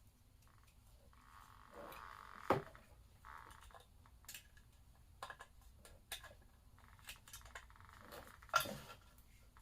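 Scattered sharp metal clicks and knocks of hand tools and parts while a Lifan LF250-D-E motorcycle engine is taken apart. There are two louder knocks, about two and a half seconds in and about a second before the end, with stretches of faint hiss between.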